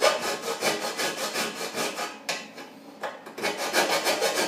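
Hand file scraping back and forth over the steel of a cracked snowmobile exhaust pipe in quick, even strokes of about five a second, roughing up the metal around the fluxcore weld before the next tack. The strokes weaken briefly a little past halfway, then resume.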